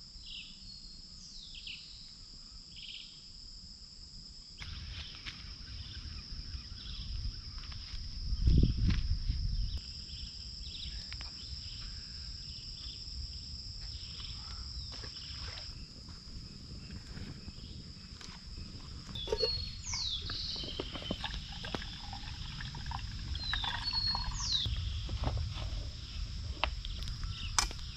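Steady high-pitched insect chorus, with a few short falling bird chirps in the second half. A low rumble runs underneath, loudest about eight seconds in.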